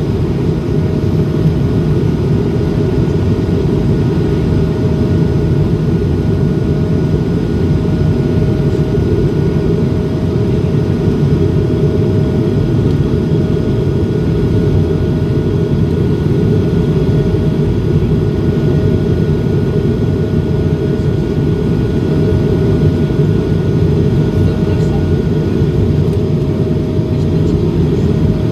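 Airbus A220-300 jet airliner in flight, its Pratt & Whitney geared turbofans and the airflow making a steady, loud rumble with a faint steady whine above it.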